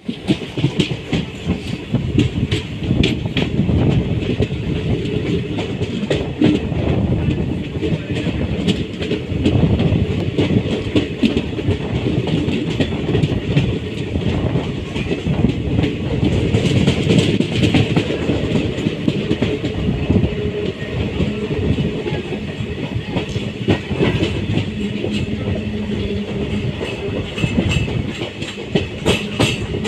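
Train running on the tracks: a continuous rumble with frequent sharp clicks as the wheels clatter over rail joints.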